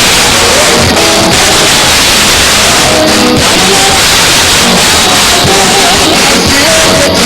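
Loud, steady praise music from a band, a melody of short notes over a dense wash of sound.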